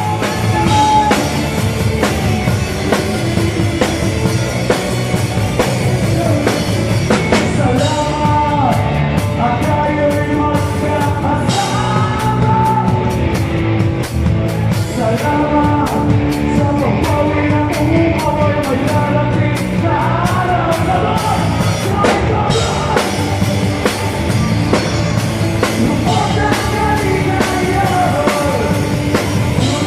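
Live band playing rock-style music with a drum kit, a melodic lead line running over it.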